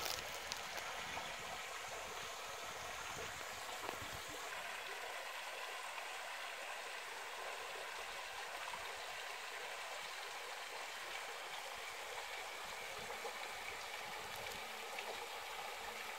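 Steady hiss of water trickling and dripping from a mossy rock overhang into a spring-fed pool.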